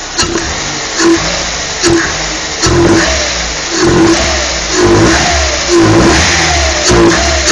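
Chevrolet Celta's 1.0 VHC four-cylinder engine with an open sport air filter, blipped on the throttle about once a second, each quick rev dropping back toward idle, with the intake noise of the sport filter.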